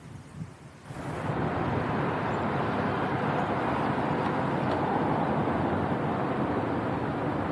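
Riding on a motorbike in traffic: a faint low hum at first, then about a second in a loud, steady rush of wind and road noise sets in and holds.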